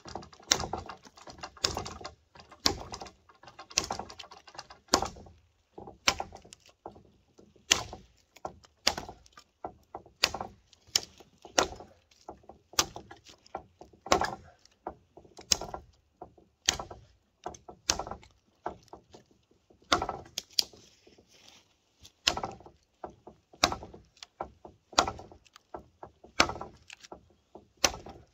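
Odenwolf W machete chopping into a dead tree trunk: a steady run of sharp wooden chops, about one to two a second.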